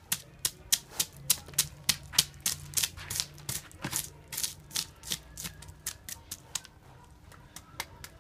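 Knife blade scraping scales off a large fish's belly in quick strokes, each stroke a sharp scratchy click, about three or four a second. The strokes thin out after about five seconds.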